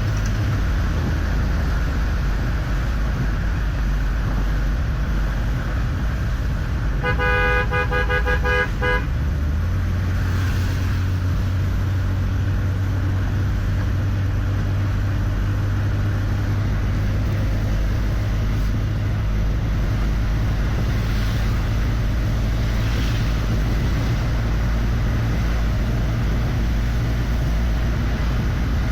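Steady rumble of a vehicle travelling along a highway, with a vehicle horn sounding for about two seconds roughly a quarter of the way in.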